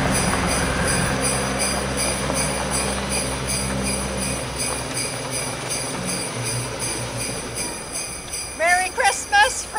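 Jingle bells shaking in a steady, even rhythm. A low engine hum sits under them for the first half. About nine seconds in, a high sliding warble joins them.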